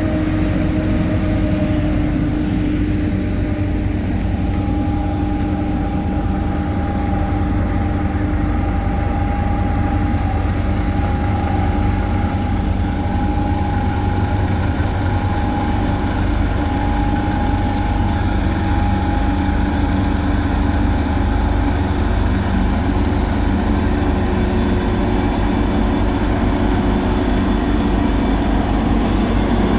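Heavy road-construction machinery's diesel engine running steadily, with a thin steady whine over the engine noise.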